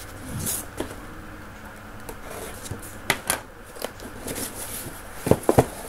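Scissors cutting the tape on a cardboard box, then the box being handled and opened, with scattered scrapes and light taps. Two sharp knocks near the end are the loudest sounds.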